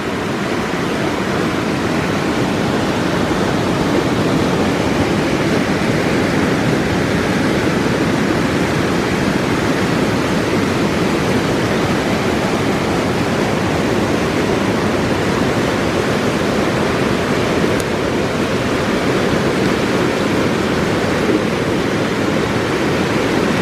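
A steady, even rushing noise that holds at one level throughout.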